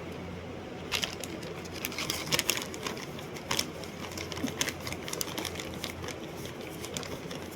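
Irregular sharp clicks and taps, several a second, starting about a second in, over a low steady hum.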